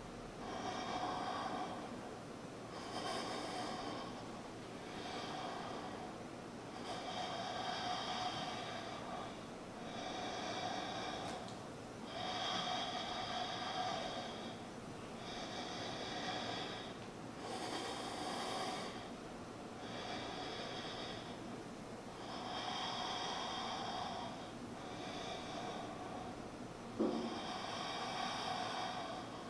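A man breathing hard and rhythmically through a long plank hold, a breath about every two seconds. A brief low sound stands out near the end.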